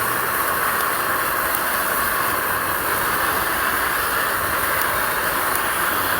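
Steady, even hiss from the camp stove as tempura cooks over it.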